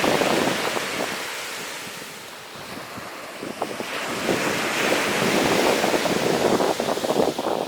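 Sea waves washing onto a beach: the wash dies down about two seconds in and builds again from about four seconds. Wind buffets the microphone throughout.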